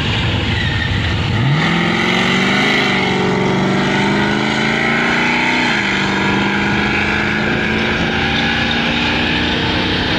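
Drag-racing car's engine launching from the start line about a second and a half in. Its note jumps up and climbs, then drops back at two gear changes about three seconds apart before holding steady as the car runs down the strip.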